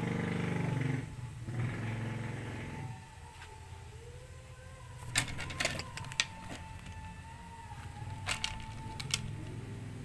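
Light metal chain clicking and rattling a few times about halfway and again near the end, as a tethered barn owl flaps its wings on a wooden bench. Under it runs a steady low drone, loudest in the first second.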